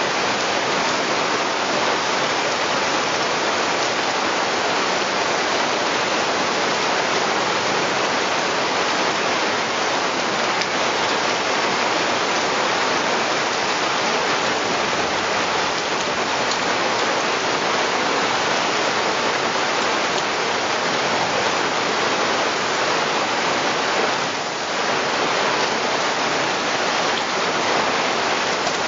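Heavy rain pouring down, a steady, even hiss of a downpour that holds at the same strength throughout.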